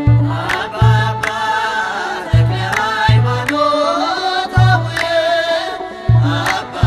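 Ethiopian Orthodox mezmur: sung voices carrying a chant-like melody over a deep kebero hand drum that beats a slow, uneven pattern.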